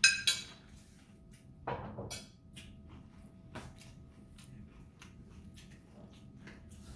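A sharp clink of a utensil against a bowl right at the start, ringing briefly. Then a softer knock about two seconds in, and scattered small clicks and crunches of someone eating rice and kimchi.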